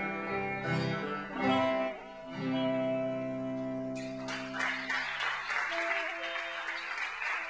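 Acoustic guitar strumming the final chords of a folk song, which ring on; about four seconds in, audience applause breaks out over the fading strings.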